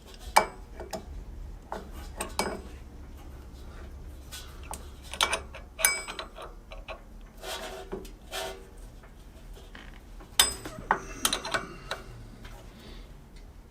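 Hand tools and small metal parts of a drill press's pulley assembly clinking and tapping at irregular intervals, some clinks ringing briefly. A quick cluster of sharper clinks comes about ten to twelve seconds in.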